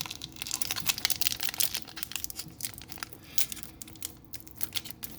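Foil booster pack wrapper being torn open and crinkled by hand: a dense run of irregular crackles.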